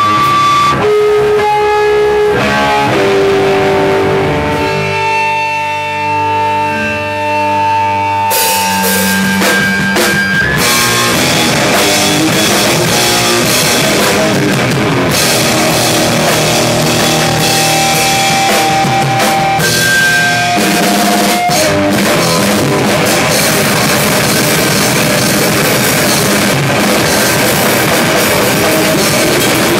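Live rock band playing in a small room: a guitar plays held notes on its own for about the first eight seconds, then the drum kit and the rest of the band come in loud and keep going.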